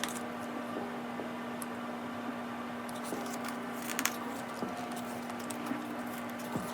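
Pages of an album photobook being turned and handled: soft paper rustles and light taps, with a sharper click about four seconds in, over a faint steady hum.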